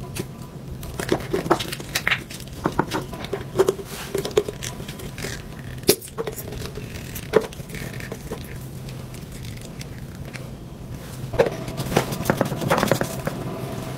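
Hands squeezing a plastic toothpaste tube into a clear plastic dispenser, with crinkling and a run of small clicks and taps on plastic. Near the end comes a quick cluster of clicks and knocks as the pump top is fitted onto the dispenser. A faint steady hum runs underneath.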